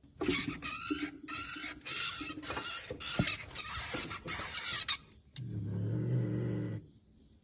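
A cat with a freshly caught mouse: a quick run of about nine harsh, scratchy bursts, then about five and a half seconds in a low, steady growl that lasts just over a second.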